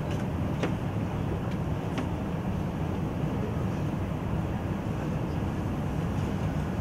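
Steady low background rumble of a room, with a few faint clicks.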